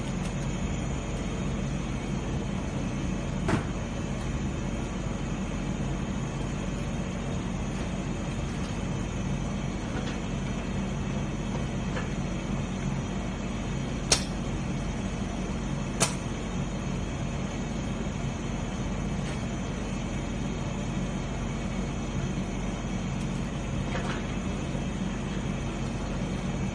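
Two-component resin dispensing machine running with a steady low hum. A few sharp clicks stand out: one early on, then two about two seconds apart near the middle.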